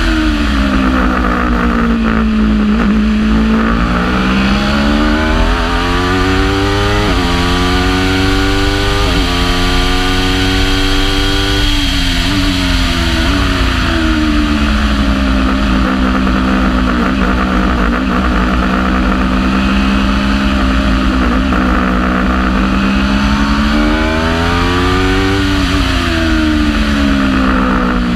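Aprilia RSV4 V4 motorcycle engine in a Thunder GB08 race prototype, heard onboard through a lap: the note falls under braking, climbs under acceleration with small steps at gear changes, drops sharply about twelve seconds in, holds low through a corner, then rises and falls again near the end. Steady wind and road rush underneath.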